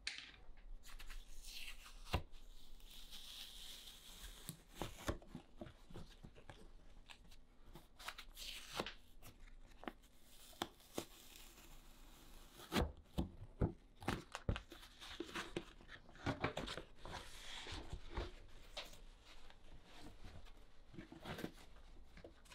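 Protective paper wrap being peeled and torn off the back and stand of a new iMac: irregular rustling and tearing, with scattered light knocks and clicks from handling, a cluster of them just past halfway.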